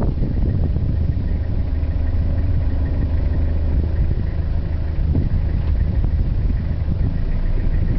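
Jeep engine running steadily at low revs, a constant low rumble.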